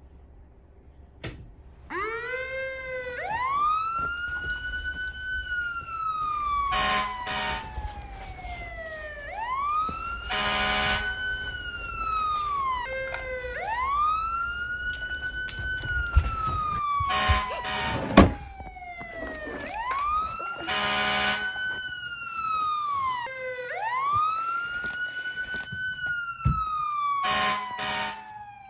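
Fire engine siren wailing, each wail rising quickly and then falling slowly, in alternating long and short cycles. Short horn-like blasts cut in several times, and a sharp knock about eighteen seconds in is the loudest moment.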